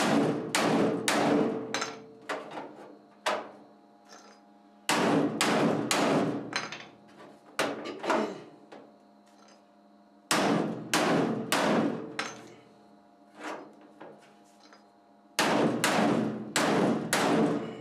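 Hammer blows on the thin sheet-steel bottom of a Kobalt tool chest, straightening the bent metal. The blows come in four bursts of several quick strikes each, with the metal ringing after them.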